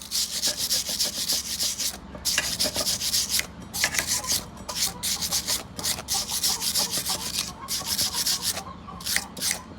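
Wire brush scrubbing over a fresh stick weld on steel to clean off slag, in repeated harsh scraping strokes with short pauses between them.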